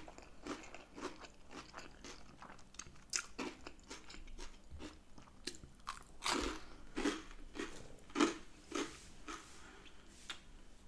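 A person chewing and biting food close to the microphone: irregular crunches and wet mouth clicks, a few of them louder.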